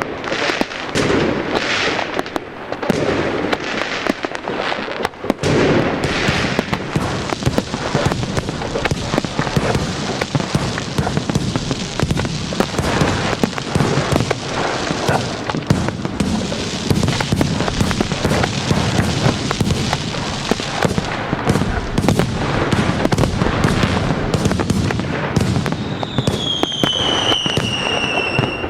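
Fireworks going off: separate bangs in the first few seconds, then a dense, continuous barrage of bangs and crackling. Near the end a single whistle falls in pitch over the crackle.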